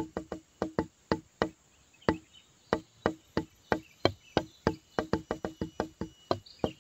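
Background music of quick, sharp wooden-sounding percussive knocks in a rhythmic pattern, several a second with short pauses, each knock carrying a low note.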